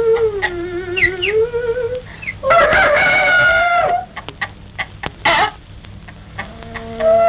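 Chickens in a barn: a long wavering call at the start, a rooster's loud crow about two and a half seconds in, then scattered short clucks, and another crow beginning near the end.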